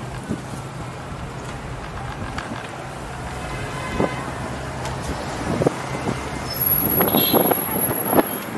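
City street traffic noise: a steady engine hum that fades out about five seconds in, with scattered clicks and knocks and louder road noise near the end.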